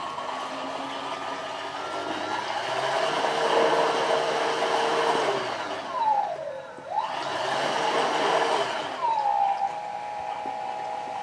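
Small electric motor of a model boat spinning a 3D-printed three-blade propeller in water. Its whine climbs in pitch as the throttle is opened, and a churning noise builds under it. About six seconds in, the pitch dips sharply and climbs again, then settles to a steady lower whine near the end.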